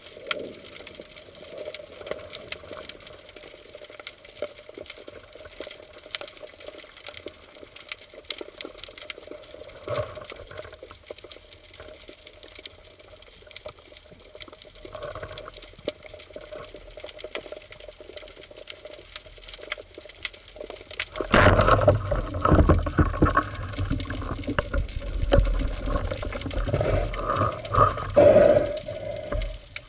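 Underwater sound picked up by a camera mounted on a speargun: a steady crackle of many small clicks over a faint constant whine. About 21 seconds in it turns into much louder rumbling, water-moving noise as the diver moves and handles the gun.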